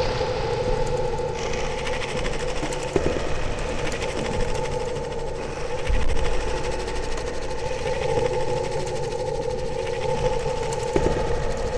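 Noisy electronic drone from a Eurorack modular synthesizer layered with found sound played from an iPad. Two steady held tones, one mid-pitched and one higher, sit over dense, grainy rumble and hiss.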